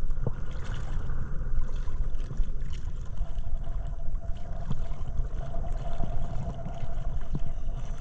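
Wind buffeting a handheld camera's microphone, a loud uneven low rumble. A faint steady hum comes in about three seconds in.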